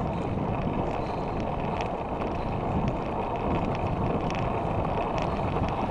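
Wind buffeting the microphone of a handlebar-mounted camera, with road-bike tyres rumbling on tarmac while riding. Scattered light ticks and rattles run through it.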